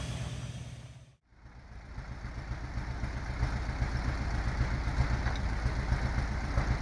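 Heavy diesel engine running, fading out to a brief silence about a second in. Then another heavy engine fades in and runs steadily with an even low throb.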